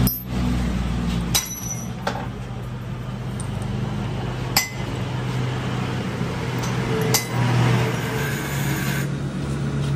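Steel tooling on a metal lathe clinking as a drill chuck and drill bit are handled and fitted at the tailstock: a few sharp metal clinks spread through, over a steady low machine hum.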